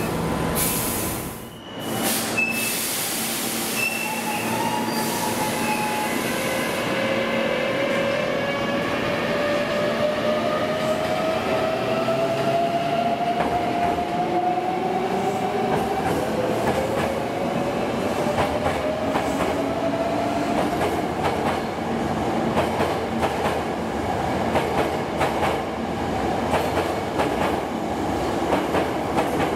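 Hankyu 8300-series electric train accelerating away: its motor whine rises slowly in pitch for about fifteen seconds, and wheels clack over rail joints, more often toward the end.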